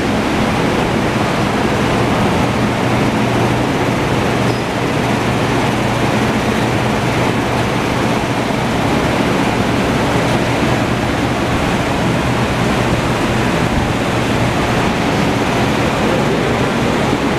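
Steady rushing air noise with a low hum underneath, typical of an electric shop fan running.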